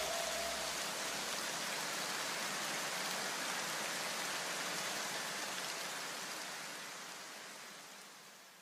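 An even, rain-like hiss fading slowly away to nothing near the end: the noise wash left as the background music track dies out.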